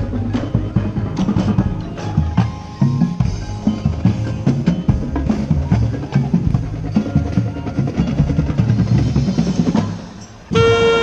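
Marching band drum line playing a busy percussion passage on snare and bass drums. Near the end the drums drop away briefly and the full band's saxophones and brass come in together on a loud sustained chord.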